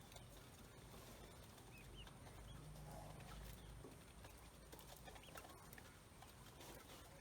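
Faint, scattered short peeps of ducklings, with small clicks.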